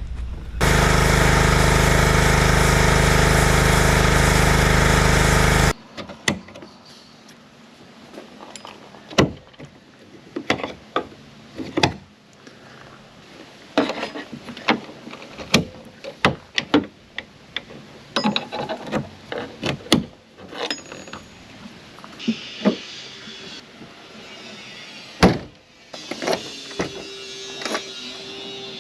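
A loud, steady noise for the first five seconds or so, which cuts off abruptly. After it come scattered metal clanks, clicks and knocks of hand tools and car parts being handled, at irregular intervals.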